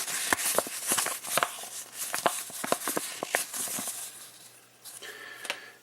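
Paper rustling and crinkling as a folded instruction sheet is handled, with many small crackles and clicks; it dies down about four and a half seconds in.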